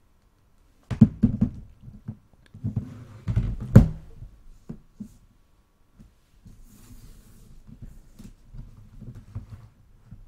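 Handling noise: a quick run of knocks and thumps, the loudest nearly four seconds in, then softer low bumping and rustling as the tablets and camera are moved about.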